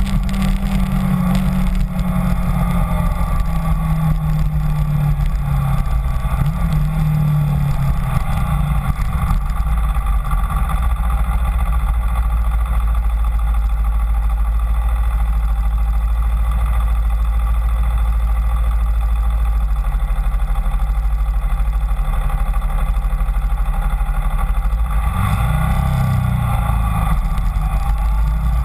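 Kawasaki Ninja 250's parallel-twin engine running while the bike is ridden, under heavy wind rumble on the microphone. The engine note rises and falls a few times early on, holds fairly steady for a long stretch, then dips and climbs again near the end.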